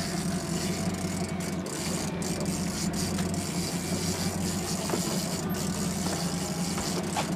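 Fishing boat's engine running steadily, a constant low hum with a wash of noise over it.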